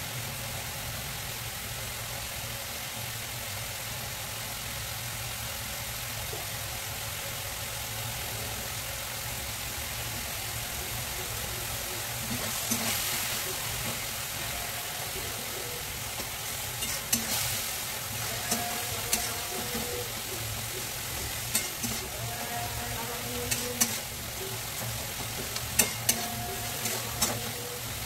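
Curry base sizzling in a metal kadai. From about halfway a spatula stirs and scrapes the pan, knocking against the metal in sharp clicks.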